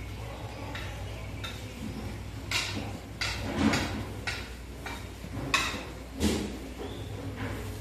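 Metal skimmer scraping and knocking against the wall of a giant kazan as a cook turns over a load of cooked plov rice, in about ten irregular strokes over a steady low hum.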